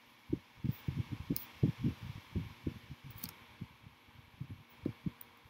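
Keystrokes and taps on a laptop keyboard and trackpad, heard as irregular dull thumps with a few light clicks between them.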